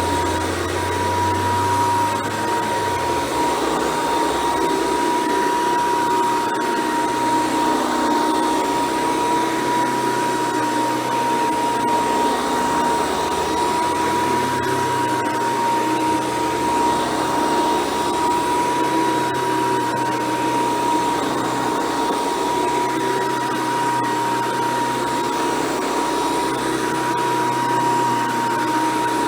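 Hoover Decade 800 convertible upright vacuum cleaner running steadily, its motor giving a constant high whine over an even rush of air.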